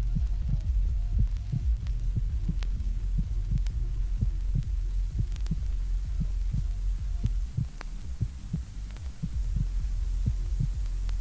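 Heartbeat soundtrack effect: low, repeating thuds, about three a second, over a steady low drone, with faint scattered clicks. The beats weaken briefly about eight seconds in, then return.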